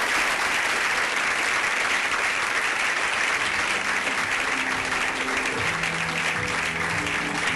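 Audience applauding, with music fading in under the applause about halfway through and growing louder near the end.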